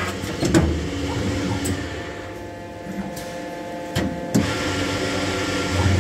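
Robland CNC drilling machine running with a steady mechanical hum, broken by sharp mechanical clicks about half a second in and twice around four seconds in.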